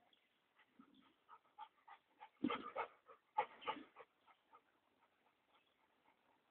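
Large dogs (a Saint Bernard and a Neapolitan Mastiff) panting at play, in a run of short, quick breaths. The breaths are loudest from about two and a half to four seconds in, then fade away.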